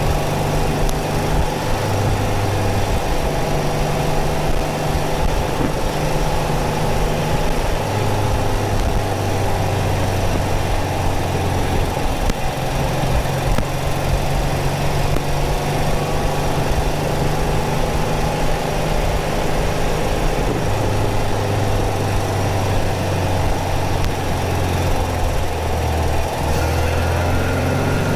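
Porsche 914's 2.0-litre air-cooled flat-four engine running as the car drives, picked up behind the rear window, its pitch drifting up and down with speed. Wind and road noise run under it, along with a little static.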